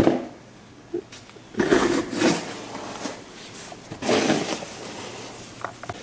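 Snow shovel scraping along a driveway in a few noisy strokes a couple of seconds apart, with a sharp knock at the start.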